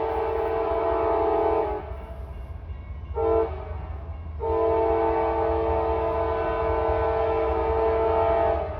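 CSX GE CW44AC diesel locomotive's horn: a long blast that cuts off about two seconds in, a short toot about a second later, then another long blast lasting about four seconds until near the end, over a steady low rumble.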